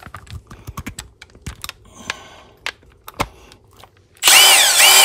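Clicks and small knocks of an impact socket being handled and fitted onto a stubby cordless impact wrench. Near the end the wrench is triggered with no load: a short motor run under a second long, rising in pitch and falling away as it stops.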